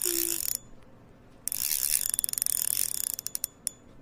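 Rapid mechanical ratchet clicking in two runs with a pause of about a second between them; the second run slows into a few separate clicks before stopping.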